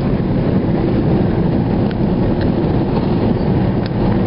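Steady low road and engine rumble inside the cabin of a moving van, with a few faint ticks.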